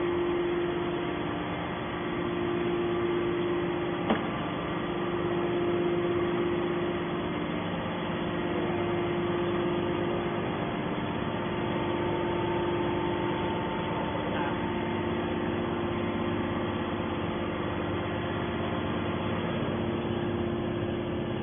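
Steady hum of a hydraulic scrap metal baler's power unit, its electric motor and pump running while the press is at rest. There is one short click about four seconds in.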